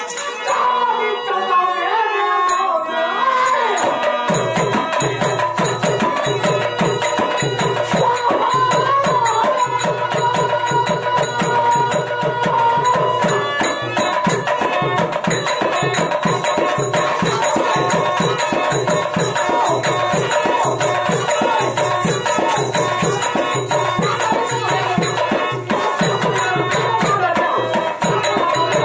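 Instrumental music: a sustained, wavering melody line over a steady drum rhythm that comes in about four seconds in.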